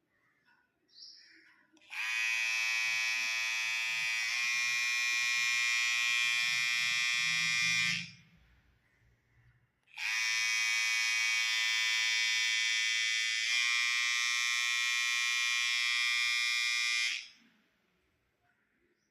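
Small battery hair trimmer switched on and buzzing steadily for about six seconds, then switched off. It is switched on again after a short pause and runs for about seven more seconds. Each run's pitch steps slightly partway through.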